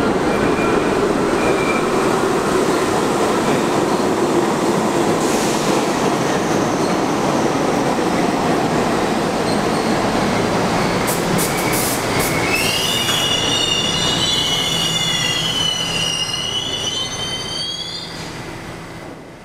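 New York City subway train rolling through an underground station with a steady heavy rumble of wheels on rail. A few sharp clicks come a little past halfway. Then a high, wavering steel-wheel squeal runs for several seconds before the sound dies away near the end.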